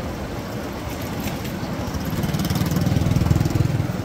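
A small engine running with a rapid, even putter that grows louder from about two seconds in and peaks near the end.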